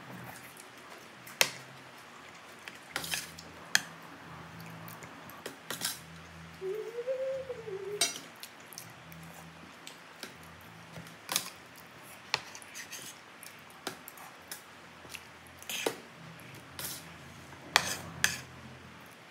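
Metal spoon and fork clinking and scraping against a plate of rice, in scattered sharp clicks a second or two apart. A short hum that rises and falls comes about seven seconds in.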